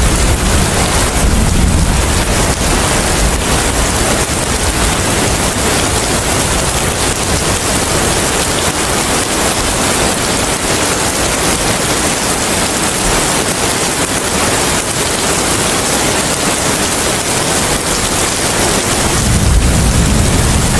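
Steady heavy rain hiss with wind; a low wind rumble is strong at first, eases off through the middle and swells again near the end.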